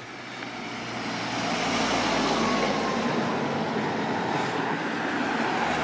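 A car driving past, its engine and tyre noise swelling over the first two seconds and then holding steady.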